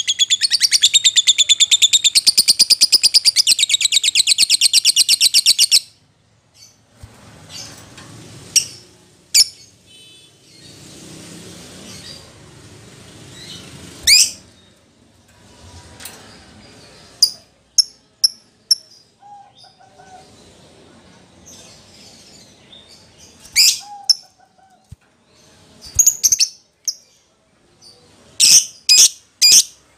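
Excited lovebird calling: a fast, unbroken shrill chattering trill for about the first six seconds, then scattered single sharp chirps with pauses between them, and near the end a run of loud chirps about two a second. This is the agitated 'fighter' song used to provoke other lovebirds into calling.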